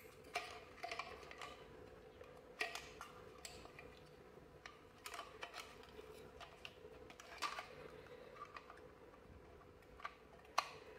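Hand handling a plastic remote-monitor housing and its coiled flat cable: scattered light clicks and knocks of plastic, the sharpest near the end, over a faint steady hum.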